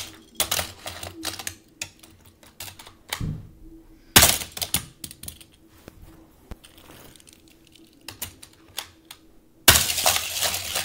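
A die-cast Hot Wheels toy car and plastic track clicking and clattering: a string of light clicks, with louder clatters about four seconds in and near the end.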